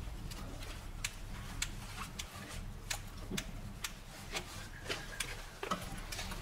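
Irregular light clicks and taps, roughly one or two a second, from hand work on the semitrailer's brake parts.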